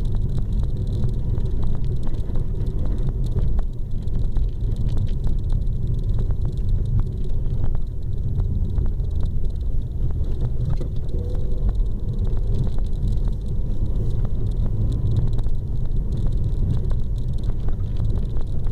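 Renault Mégane RS's turbocharged four-cylinder engine pulling steadily uphill, with the tyres rumbling over packed snow, heard from inside the cabin. Faint small clicks are scattered throughout.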